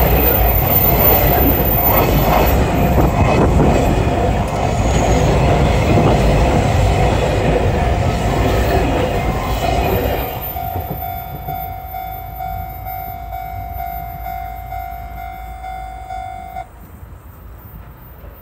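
Container wagons of a DD51-hauled freight train rolling past close by, wheels clattering over the rail joints. The noise drops about ten seconds in as the last wagon passes, then fades into the distance. A steady ringing tone sounds underneath and cuts off suddenly near the end.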